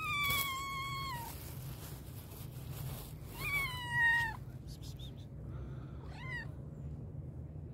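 Black-and-white cat meowing loudly three times: two long meows about three seconds apart, each holding its pitch then dropping at the end, and a shorter, fainter one near the end. The meows of a hungry cat calling for food.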